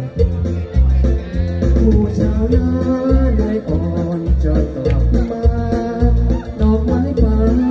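A man sings through a microphone and PA system over amplified backing music with a steady, heavy bass beat.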